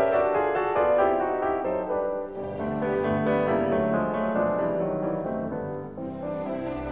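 Instrumental background music, mainly piano playing a slow melody.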